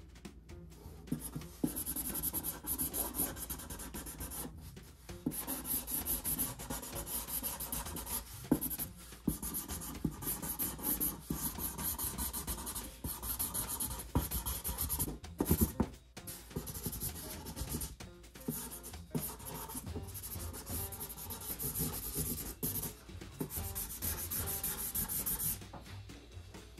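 Felt-tip marker scrubbing across a cardboard comic box in quick colouring strokes, in runs broken by short pauses.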